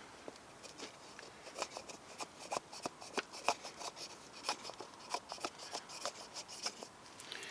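Small multi-tool axe blade shaving a dried firewood log into curly shavings: a string of quiet, irregular scraping and clicking strokes.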